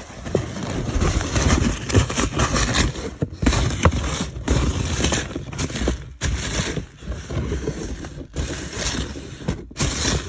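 A hand rummaging through loose polystyrene foam packing beads in a cardboard box: a dense, continuous rustle of beads shifting and rubbing against each other and the cardboard, broken by a few brief pauses.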